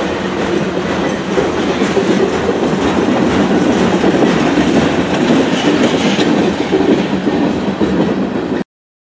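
Autorack and tank cars of a CN manifest freight train rolling past at trackside: a steady rumble and rattle of steel wheels on rail, cutting off suddenly near the end.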